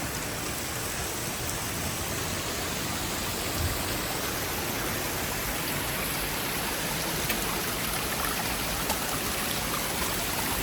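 Steady rush of falling water from a waterfall, an even hiss with no change, and one soft thump about three and a half seconds in.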